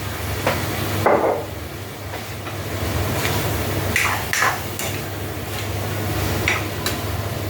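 A cooking utensil knocking and scraping against a pan while shrimp is stirred, a series of separate clinks and knocks, with a steady low hum underneath.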